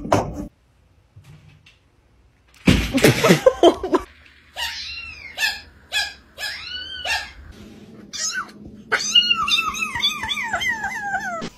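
Kittens meowing: about five separate meows that rise and fall in pitch, then near the end a quick string of complaining mews, each dropping in pitch. About a quarter of the way in there is a loud, rough burst of noise lasting about a second, louder than the meows.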